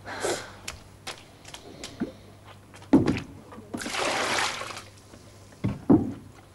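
A wooden bucket of water is knocked down and tipped into a wooden washtub, the water pouring in for about a second, with heavy knocks of the wooden bucket and tubs before and after.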